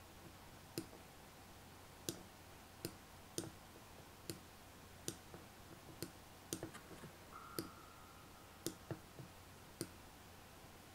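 Computer mouse clicking about a dozen times at irregular intervals, faint against quiet room hiss, with a brief steady faint tone a little past halfway.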